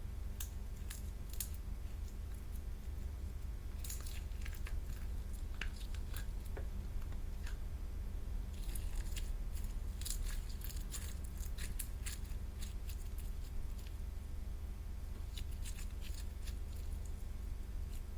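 Slime being mixed and worked by hand: scattered sticky clicks and crackles, thickest in the middle, over a steady low hum.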